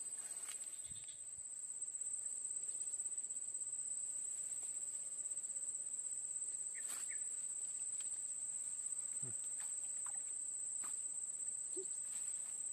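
Insect trilling: one steady, high-pitched buzzing tone that runs unbroken, with a few faint clicks and knocks.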